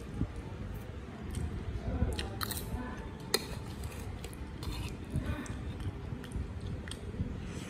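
Close-up chewing of rice and small whole shrimp, with scattered sharp clicks from a metal spoon on the ceramic plate and crunching; the loudest click comes about three seconds in.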